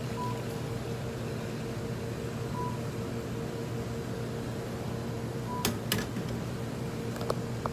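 Steady electrical hum of a convenience store's coolers and ventilation, with three short high beeps spread through it and a few sharp clicks and taps near the end.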